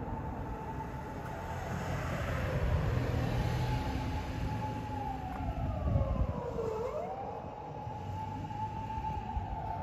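An emergency vehicle siren wailing: a single tone that holds high, slides down over a couple of seconds and sweeps quickly back up, over a low steady rumble of traffic.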